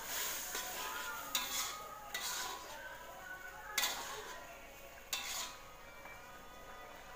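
Metal spatula scraping and clinking against a wok while squid in a thick sauce is stirred: about six separate strokes, stopping about five and a half seconds in.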